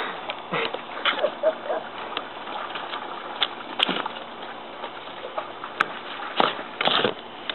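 Water splashing in a shallow plastic wading pool as a small dog stamps and paddles about in it: irregular splashes, the biggest a little before the end.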